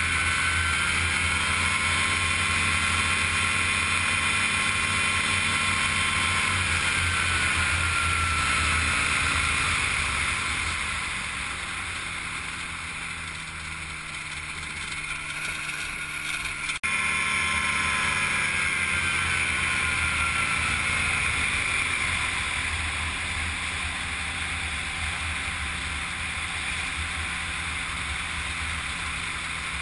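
Engine and propeller of a small gyroplane (Gyrobee) running steadily, then throttled back about seven seconds in, the pitch sliding down and the level dropping. A sharp break comes about seventeen seconds in; after it the engine is loud again and its pitch eases down slowly.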